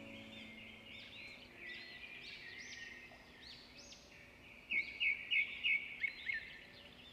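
Several small birds chirping and calling, with a quick run of louder, sharp chirps in the second half.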